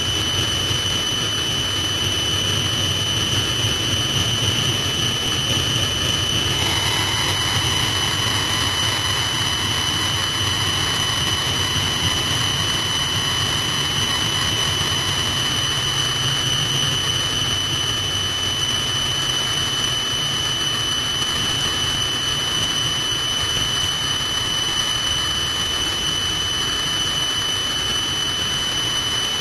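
Turbine helicopter running on the ground with a steady high-pitched whine. About seven seconds in, a second, lower whine joins it and holds.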